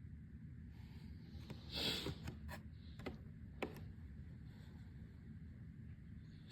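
A person's short, sharp, breathy intake about two seconds in, then a few faint clicks, and another sharp intake right at the end as a sneeze builds.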